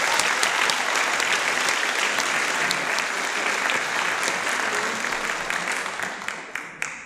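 Audience applauding, a dense clapping that holds steady and then thins out and dies away near the end.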